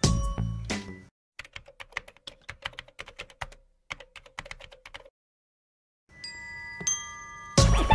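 Keyboard-typing sound effect: a quick run of key clicks for about four seconds, with a short pause in the middle, following the tail of background music. Soft music comes back in near the end.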